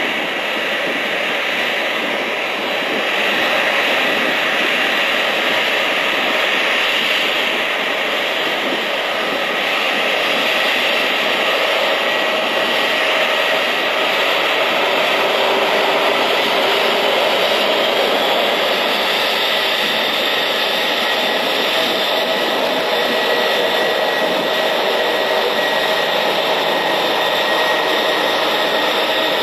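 Airbus A320-211 airliner's CFM56 turbofan engines running at taxi power as the jet rolls past: a steady jet whine over a rushing hiss.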